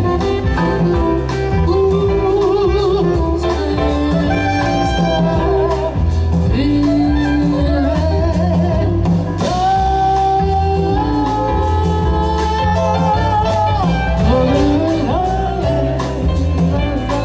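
A song: a singer holding long notes with vibrato over band accompaniment with a steady beat.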